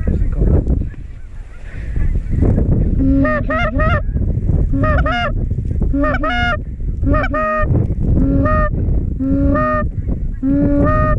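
Geese honking in short repeated series, starting about two and a half seconds in, over a low wind rumble.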